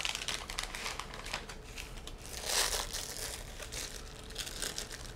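Clear plastic packaging bag crinkling and rustling as it is handled and unwrapped, a continuous run of small crackles that swells about two and a half seconds in.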